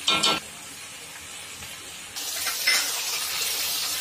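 A spatula clinks and scrapes against a metal kadai with a short ringing clatter at the start. About two seconds in, a steady sizzling hiss starts suddenly as tomato purée and turmeric fry in hot oil while being stirred, with a couple of scrapes of the spatula in it.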